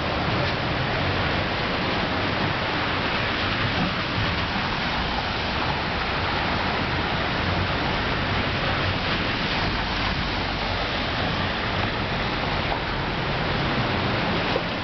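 Heavy rain falling on a wet street, a steady even hiss.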